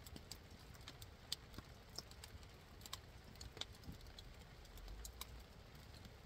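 Wood campfire crackling faintly, with scattered irregular pops and snaps.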